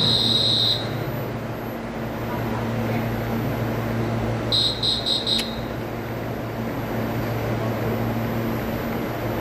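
Steady low hum of a stopped EMU900 electric multiple unit standing at the platform. A high electronic beep sounds briefly at the start, and a quick run of four beeps comes about five seconds in.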